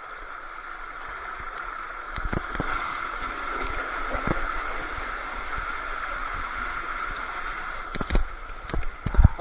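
Water rushing through an enclosed tube waterslide as a rider slides down it, picked up by a camera carried along the tube. It is a steady rushing noise, with scattered knocks from bumping against the tube and several loud knocks near the end.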